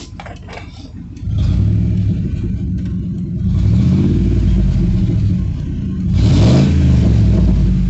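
2002 Ford Expedition's V8 running with its exhaust open: the pipe behind the catalytic converter has come off at the Y-pipe ahead of the muffler. It idles with a low rumble, gets louder about a second in, then is revved in two swells that rise and fall in pitch, around the middle and near the end.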